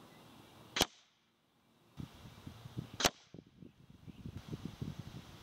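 Two shots from a .257 AirForce Texan big-bore PCP air rifle, each a single sharp crack, a little over two seconds apart. A low, uneven rumbling runs beneath from the middle on.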